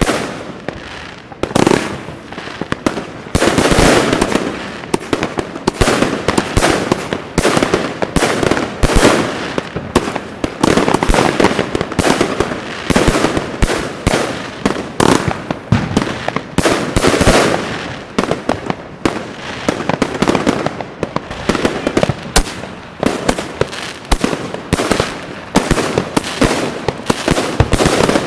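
Alpha Fireworks 'The Vault' multi-shot fireworks cake firing, its shots launching and bursting in quick succession, several a second, without a break.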